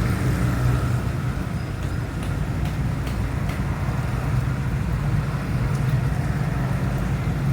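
Steady low rumble of a motor vehicle or road traffic, with a few faint ticks between about two and three and a half seconds in.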